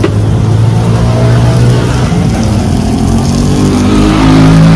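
A motor vehicle engine running close by, its pitch rising and getting louder over the last couple of seconds as it revs or accelerates.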